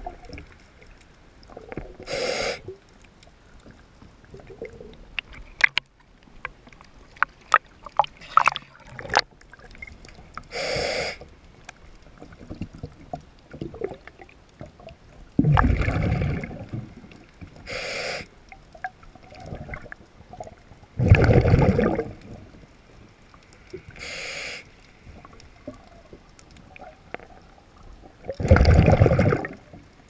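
Scuba diver breathing through a regulator underwater. Each inhale is a short hiss, and every several seconds a loud rumble of exhaled bubbles follows. A cluster of sharp clicks comes about a quarter of the way in.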